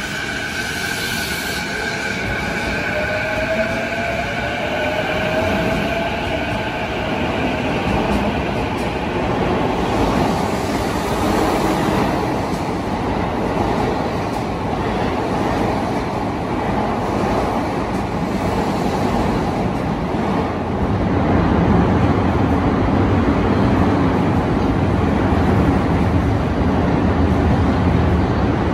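Keiyo Line E233-series electric train pulling out of an underground platform. The motor whine holds several tones, one of them rising in pitch as it picks up speed, and fades into a steady rumble of wheels on rail. About twenty seconds in, a louder, deeper rumble sets in as a Musashino Line train moves along the platform.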